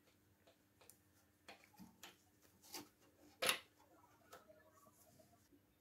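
Small metal parts clicking and tapping as they are handled and fitted together by hand: a scatter of faint ticks with one sharper click about three and a half seconds in, over a faint steady hum.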